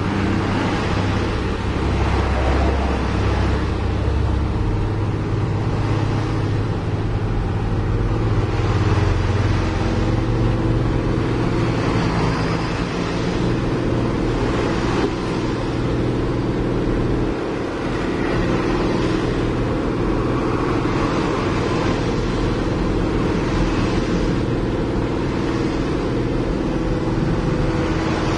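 Truck engine running steadily while driving, heard from inside the cab, with tyre and road noise over a rough gravel road.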